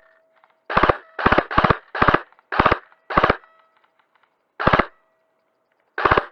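An airsoft electric gun firing about eight short full-auto bursts, each a quick rattle of a few shots. Most come close together in the first three seconds, then two more follow spaced apart.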